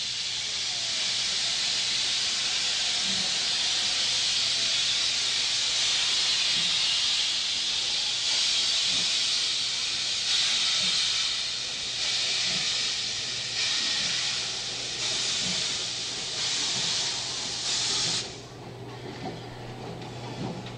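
The 1922-built JNR Class 8620 steam locomotive No. 58654 blowing off a loud, steady hiss of steam. From about eight seconds in, the hiss breaks into regular chuffs that come a little faster, about two a second, as the train gets under way. The hiss cuts off suddenly near the end.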